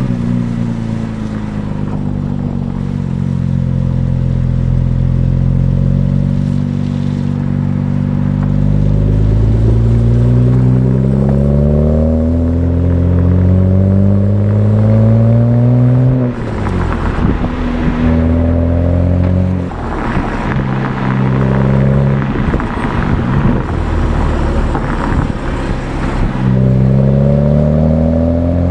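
2008 BMW 335i's twin-turbo 3.0-litre inline-six (N54) with its stock exhaust, pulling under load with the revs rising slowly for about fifteen seconds. The revs then drop off and the exhaust crackles and pops on the overrun for several seconds, before the engine pulls again near the end.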